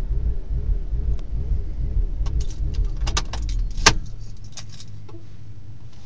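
BMW Z4 engine idling with the rough idle its owner is seeking help with, while keys jangle; about four seconds in there is a sharp click and the engine cuts off, leaving a quieter steady hum.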